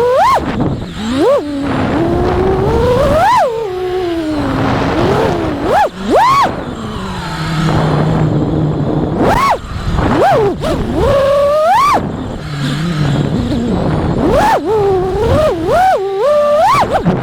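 5-inch FPV quadcopter's four T-Motor F60 Pro IV 1750kv brushless motors, spinning 5-inch tri-blade props, whining as the throttle is punched and chopped. The pitch sweeps up and drops again many times, with a rush of wind noise underneath.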